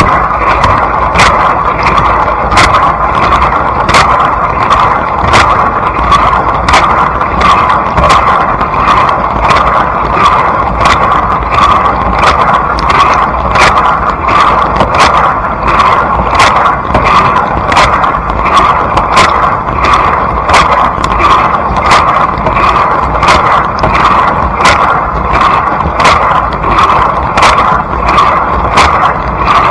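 Blanco dishwasher running, heard from inside the tub: a loud, steady rush of spraying water with regular sharp ticks, about two to three a second.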